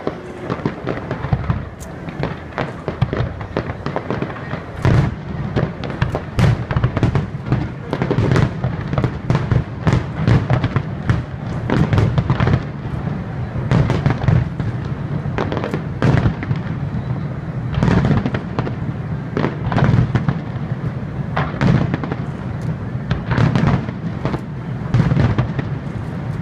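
Aerial fireworks shells bursting over the water in a long run of booms. The bursts are sparse at first and come thick and fast from about five seconds in, as the display builds toward its finale.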